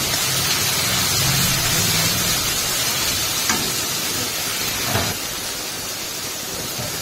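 Onion and spice masala sizzling and bubbling in hot oil in a kadai, a steady hiss, while a spatula stirs it; a couple of light knocks of the spatula on the pan about three and a half and five seconds in.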